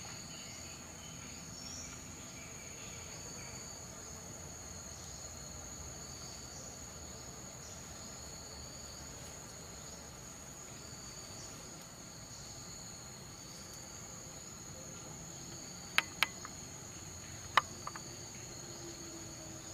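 Forest insects droning steadily at a high, even pitch. Near the end come sharp clicks: two close together, then a third about a second later.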